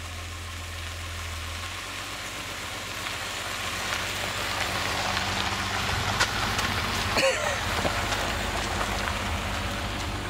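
Ford Taurus station wagon driving slowly along a gravel road and passing close by, its tyres crunching on the gravel over a low engine hum, growing louder as it nears. A sharp click of stone about seven seconds in.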